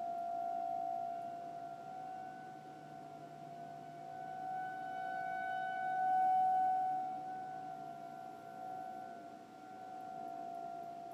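Outdoor tornado warning siren sounding an alert, holding one steady pitch while its volume swells and fades, loudest about six seconds in.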